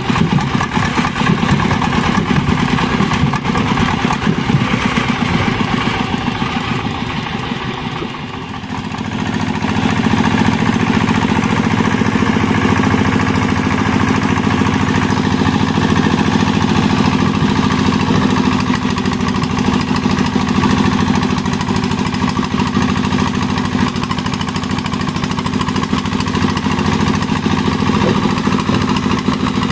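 Công nông farm tractor's single-cylinder diesel engine running continuously; it eases off briefly about eight seconds in, then picks up again and runs steadily.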